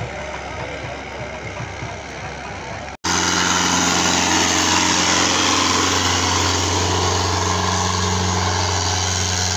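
Farm tractor's diesel engine running steadily while hauling a heavy trailer load, with road noise. About three seconds in, the sound cuts abruptly to a louder, very steady engine note with a strong low hum.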